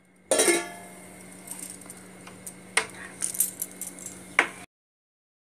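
Steel lid put on a cooking pot with a ringing metallic clang, followed by a few lighter metal clinks.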